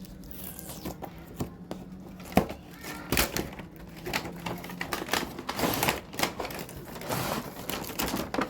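Plastic packaging crinkling and a toy pistol's plastic parts clicking as it is unboxed and handled, in irregular clicks with one sharp click about two and a half seconds in.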